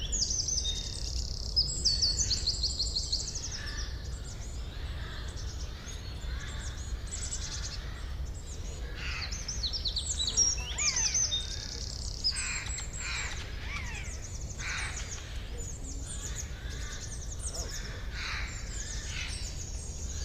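A chorus of songbirds in a forest: many birds singing at once in quick, high chirps and fast trills that overlap throughout, over a steady low background rumble.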